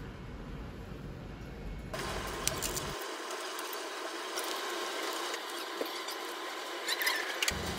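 Small clicks and light taps from gloved hands handling gelatin capsules and a glass beaker, over steady room noise that changes abruptly about two seconds in and again near the end.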